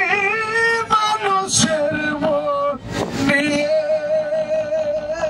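A man singing into a microphone, holding long notes that waver in pitch, with one long held note in the second half.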